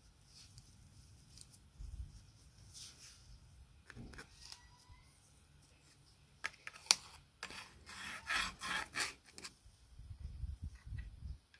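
Workshop handwork: a series of short rubbing or filing strokes with scattered small clicks, coming quickest from about seven and a half to nine and a half seconds in.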